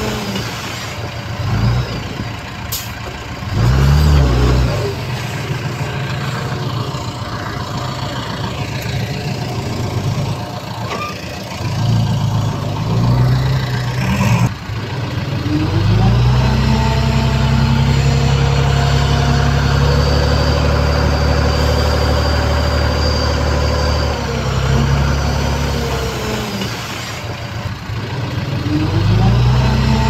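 Heavy earthmoving machine's diesel engine revving up and dropping back several times, held at high revs for several seconds in the second half as it works under load. A sharp knock sounds about halfway through.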